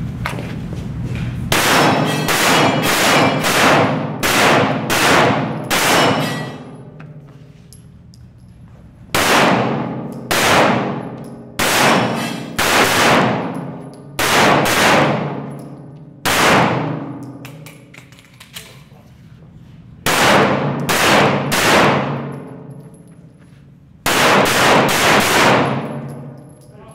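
Pistol shots fired in quick strings with short pauses between. Each crack rings out in a long echo off the concrete walls of an indoor range.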